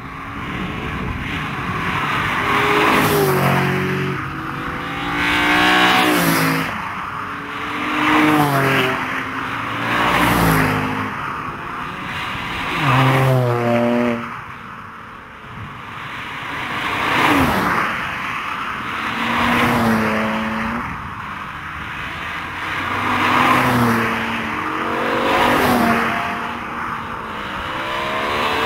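A line of performance cars driving past one after another, about ten in all. Each engine swells and fades as it goes by, revving up and then dropping in pitch.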